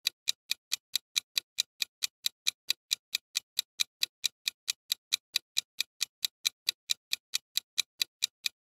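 Clock-ticking sound effect for a quiz's ten-second countdown timer: even, sharp ticks at about five a second, stopping abruptly as the time runs out.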